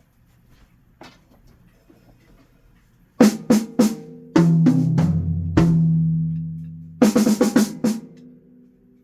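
Yamaha drum kit played in short fills: a quick run of sharp hits about three seconds in, then tom strokes left ringing low for over a second, then another fast run of hits near the end.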